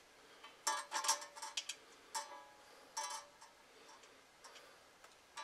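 Irregular small metallic clicks and clinks, each with a brief ring, as screws are started by hand into the metal plate of a Shopsmith scroll saw.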